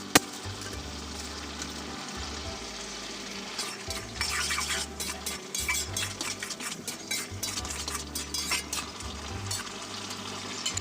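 A spatula stirring a vegetable curry in a metal cooking pan, scraping and clinking against the pan in quick strokes that thicken about four seconds in. There is a single sharp click just after the start.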